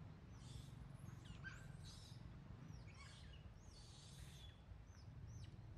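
Faint birds chirping: many short, quick calls that sweep up and down in pitch, over a steady low rumble.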